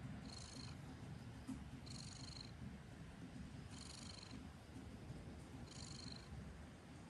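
Domestic cat purring steadily while being stroked, a low continuous rumble. A soft, short hiss-like rustle comes about every two seconds over it.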